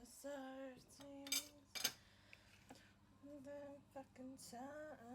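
A woman humming a few short wordless notes, with two sharp clinks of cutlery on a plate about one and a half and two seconds in.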